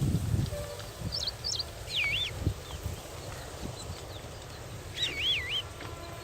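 A young parrot calling: short whistled calls that swoop up and down in pitch, a quick pair about a second in, a longer wavering one at about two seconds and another about five seconds in.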